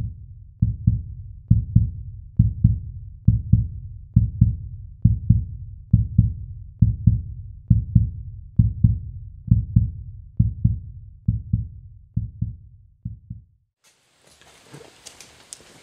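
Heartbeat-style intro sound: pairs of deep thumps, about one pair a second, growing quieter near the end before stopping. Faint outdoor background noise with a few clicks comes in just after.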